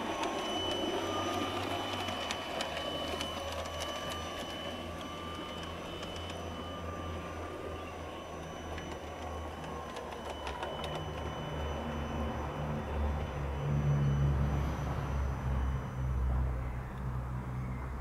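Garden-railway model tank locomotive running along the track: a steady electric motor whine with wheels clicking over the rail joints, fading away over the run. A low rumble grows louder in the second half.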